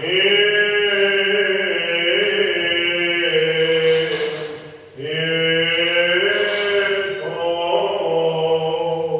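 Byzantine chant: a chanter singing long, held, melismatic phrases, with a brief pause between two phrases about four and a half seconds in.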